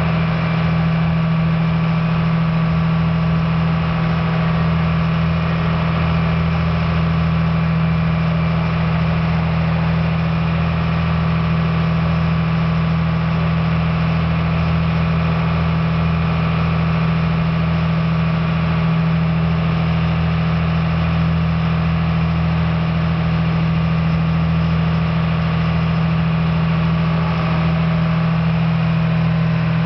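Ferry's engine running steadily under way, a constant low drone with a strong hum, mixed with the rush of water along the hull and wake.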